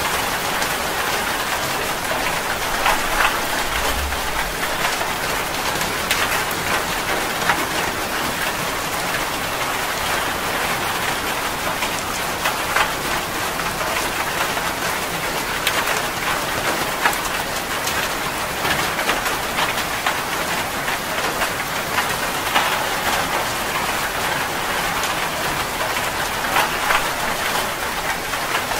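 Steady rain falling and splashing on a surface: an even, dense hiss with scattered sharper drop ticks.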